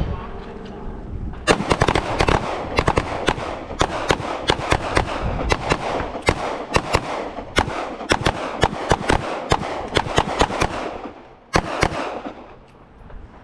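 A line of handguns firing at once: rapid, overlapping shots that start about a second and a half in, continue for roughly ten seconds, then thin out, with a last shot near the end.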